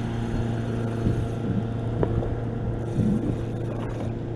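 Steady hum of a boat motor, with a few faint clicks over it.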